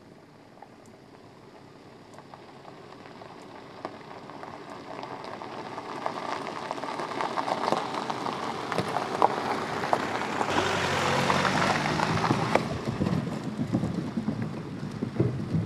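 Car tyres crunching over a gravel track, with small stones popping, growing steadily louder as the car approaches. About ten seconds in, the sound changes suddenly to a heavier, lower rumble as the tyres roll over a wooden plank bridge.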